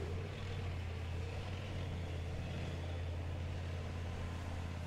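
Steady low drone of armoured vehicles' diesel engines running on the track, level throughout.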